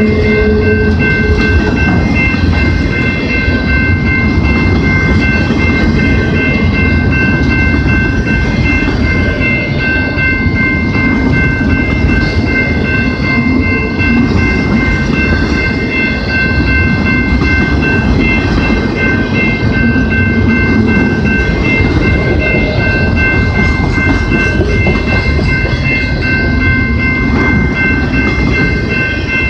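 Freight train of autorack cars rolling past at close range: a steady rumble and clatter of steel wheels on rail, with a thin, steady high-pitched whine above it.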